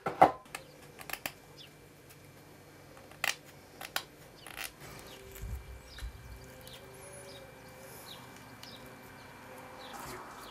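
Handling noises at a workbench as an animal skin is moved about: scattered short clicks and light knocks, the loudest right at the start, over a low steady hum. A faint high chirp sounds about seven seconds in.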